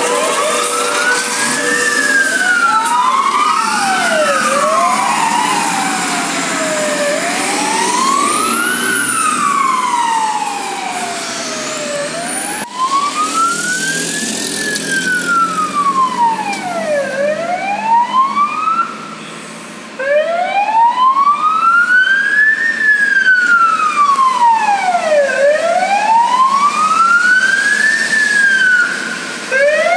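Fire engine sirens wailing, each sweep rising and falling about every three seconds. For the first several seconds two sirens overlap out of step, then a single siren carries on; it cuts out briefly about two-thirds of the way through and starts again.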